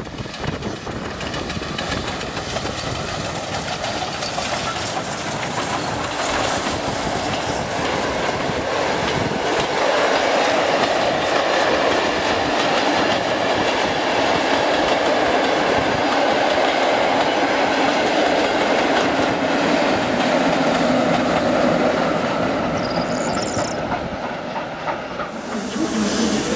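Steam-hauled passenger train passing close by: the locomotive and then a long line of coaches rolling past with a steady clickety-clack over the rail joints. The sound builds over the first ten seconds, holds steady, and cuts off abruptly near the end.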